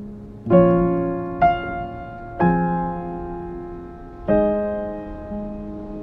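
Background music: a slow, gentle piano piece, with four chords struck about a second or two apart and left to ring out and fade.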